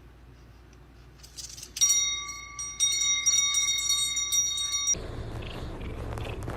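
A ringing, bell-like tone holding several steady pitches starts about two seconds in, lasts about three seconds and cuts off suddenly. A faint low hum comes before it.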